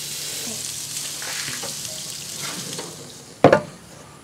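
Bacon-wrapped dove and quail sizzling over charcoal on the grill grate, with faint tong clicks; the sizzle fades and about three and a half seconds in the Char-Griller's steel lid shuts with a single loud clank.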